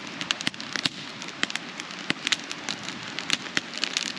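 Campfire crackling, with many sharp, irregular pops over a steady hiss.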